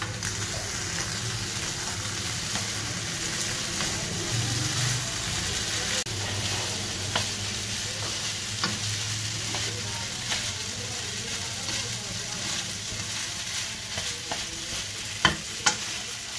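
Chow mein noodles and vegetables sizzling in a hot frying pan as they are tossed with wooden chopsticks. A steady hiss, with scattered light clicks and two sharp knocks near the end.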